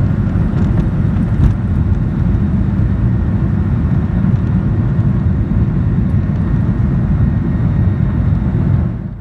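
Inside the cabin of a Boeing 737 with its jet engines at takeoff power: a steady, loud, deep noise during the takeoff roll and liftoff. It fades out near the end.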